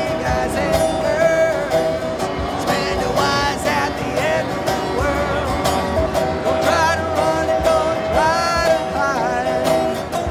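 A man singing while strumming a resonator guitar, a country or bluegrass-style song.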